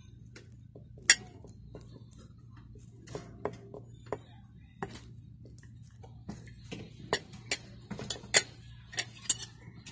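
Metal spoon and fork clinking and scraping against a ceramic plate while scooping rice: a string of irregular sharp clinks, the loudest about a second in and another near the end.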